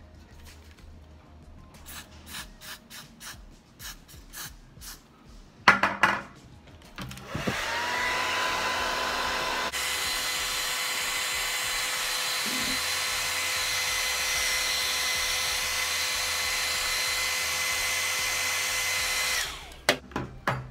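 Handheld hair dryer switched on about seven seconds in, its whine rising as the motor spins up, then running steadily with a high whine while it dries lace-wig glue until tacky. It stops abruptly near the end. A few light clicks and taps come before it.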